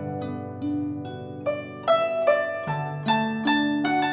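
Background music of plucked string notes over sustained low tones, several notes a second in a light melody.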